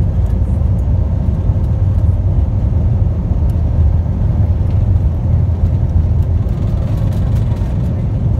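Airliner cabin noise during the takeoff roll at full thrust: a loud, steady low rumble of the jet engines and the wheels on the runway as the plane nears lift-off speed.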